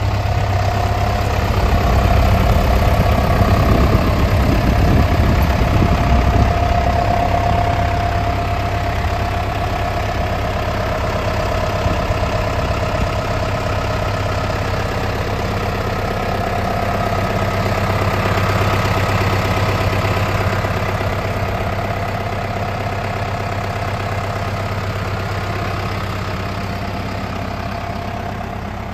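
John Deere 5620 tractor's diesel engine running steadily, a little heavier in the first few seconds as the tractor drives up, then idling evenly.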